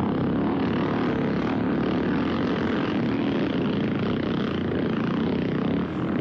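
Motocross motorcycle engines running at racing revs, a dense steady drone with a brief dip near the end.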